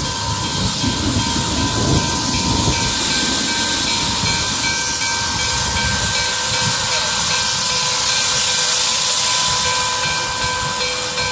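Nickel Plate Road 765, a 2-8-4 Berkshire steam locomotive, hissing loudly and steadily as steam vents around its cylinders while it creeps forward, with a faint steady high tone under the hiss.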